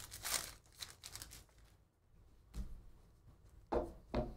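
Foil wrapper of a Panini Prizm football hobby pack being torn open and crinkled for about the first second and a half. Then a few short knocks as the cards are taken out and handled.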